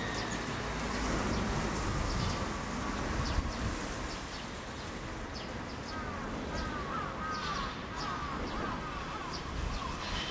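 A bird calling: a quick run of short, arched chirps from about six seconds in, over a steady low outdoor rumble. A faint falling whine fades out in the first couple of seconds.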